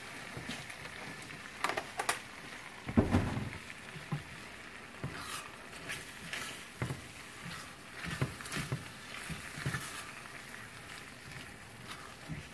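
Southern-style fried corn sizzling in a skillet as milk is poured in and then stirred with a silicone spatula, with irregular scrapes and knocks against the pan. A single low thump about three seconds in.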